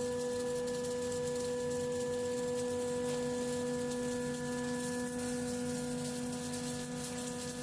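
Flake ice machine's refrigeration plant running: a steady machine hum of several held tones over a faint hiss, with no change in pitch or level.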